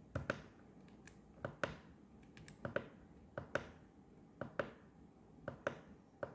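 Keys on a Zeus 75 keyboard pressed one at a time, about once a second, each press giving a quick double click as the key goes down and comes back up.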